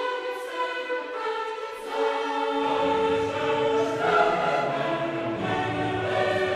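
Background music: classical choral music with long held notes, lower parts coming in about two and a half seconds in and filling out the sound.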